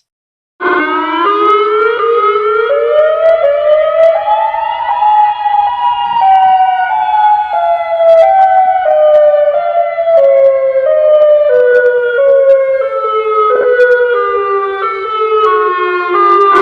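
A loud siren-like sound effect: one pitched tone that starts about half a second in, climbs in small steps for about four seconds, then slides slowly back down in steps.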